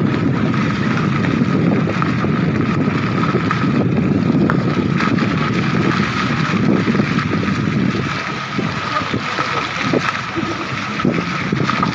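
Wind buffeting the microphone at a moving car's open side window, over the car's steady road and engine noise, easing off a little about eight seconds in.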